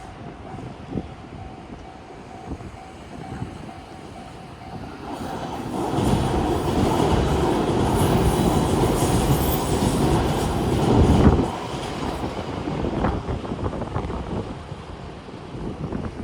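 JR Kyushu 813 series electric train passing over a level crossing, its wheels clattering over the rails. The noise builds about five seconds in, stays loud for about six seconds and drops off sharply.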